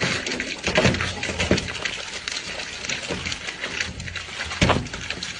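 A man eating watermelon face-first: many quick, wet crunches and slurps as he bites into the flesh.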